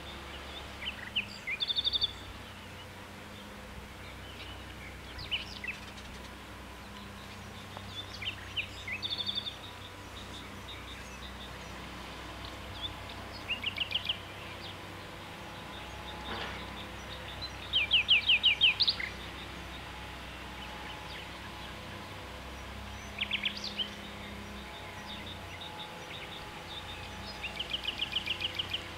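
Songbirds singing in short bursts of quick, repeated high notes every few seconds, over a steady outdoor background hum.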